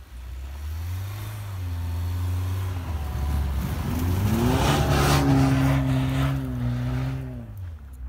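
Mercedes-Benz GLA compact SUV driving along a snowy track and passing close by. Its engine note climbs and gets louder to a peak about four to five seconds in, along with the rush of tyres through snow, then eases off as it drives away.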